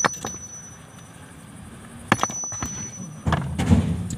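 Two blows of a sledgehammer on hard stone, one at the start and one about two seconds later, each a sharp crack with a high ring that fades quickly. Near the end there is a scrape and clatter of broken rock being handled.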